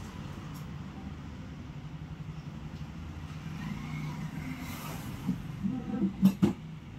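A flat-screen TV being worked onto its wall-mount bracket: a few light knocks, then two sharp knocks a moment apart about six seconds in, over a steady low rumble.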